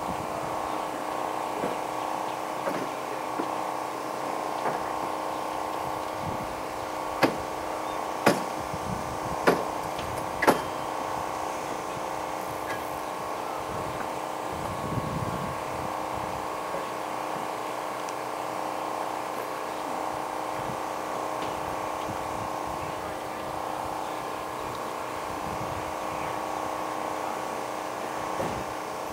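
Steady mechanical drone made of many tones together, with four sharp knocks about a second apart a quarter of the way in.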